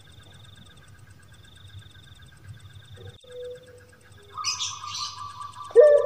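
Birds chirping: faint, evenly repeating high trills, with a louder burst of chirping about four and a half seconds in. A loud, long, low tone begins just before the end.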